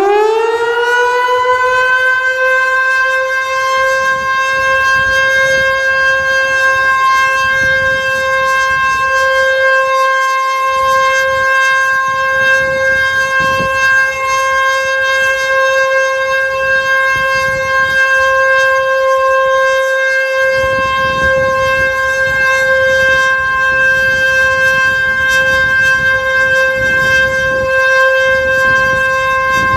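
HLS 273 civil-defence siren sounding one steady, loud tone in a test alarm, held without rising or falling.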